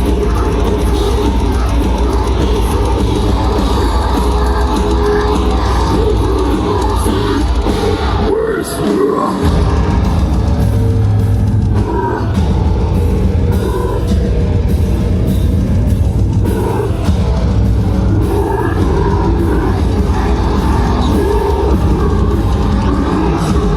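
A deathcore band playing loud heavy metal live, with low, heavy guitars and drums filling the sound. The low end drops out briefly about nine seconds in, then the full band comes back in.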